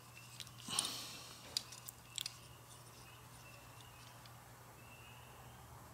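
Digital caliper and steel gauge block being handled: a few light clicks and a brief scrape as the caliper's jaws are slid and closed on the block, over a faint steady low hum.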